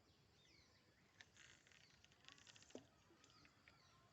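Near silence outdoors: faint bird chirps near the start, then a few soft clicks and a brief patch of rustling in the middle.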